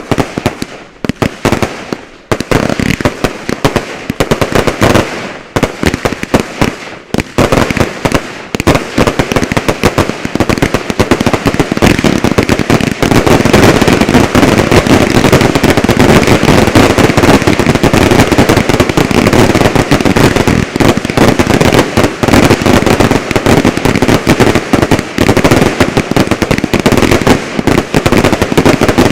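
Fireworks finale barrage: separate bangs and crackles for the first several seconds, then a rapid, near-continuous run of explosions and crackling that thickens and gets louder about halfway in.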